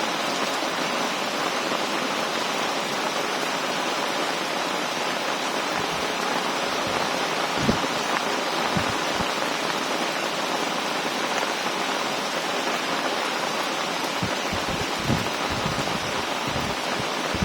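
Heavy rain pouring down in a steady hiss, with a few brief low thumps.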